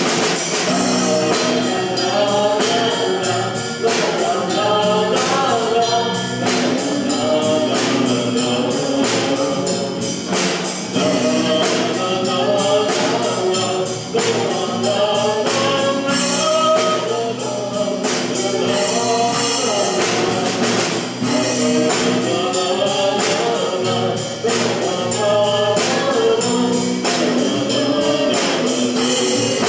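Live band performing a pop song: a lead vocal over electric bass and drums, with a steady beat.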